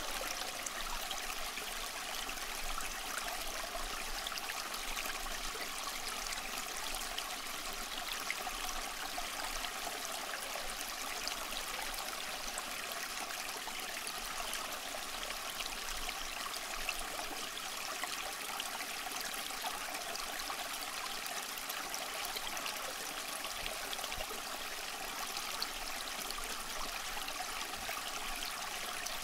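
Water trickling and splashing steadily down a small homemade tabletop waterfall fountain.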